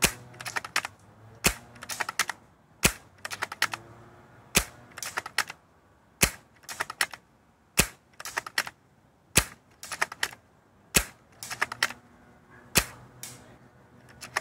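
Tokyo Marui VSR-10 spring-powered bolt-action airsoft rifle with a heavy piston, fired as fast as it can be worked: nine sharp shots about every one and a half seconds. Each shot is followed by a quick rattle of clicks as the bolt is cycled to cock the spring for the next one.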